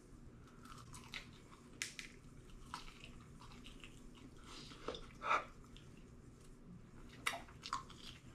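Faint eating sounds of a hot chicken wing being bitten and chewed: scattered soft mouth clicks and smacks, the loudest about five seconds in.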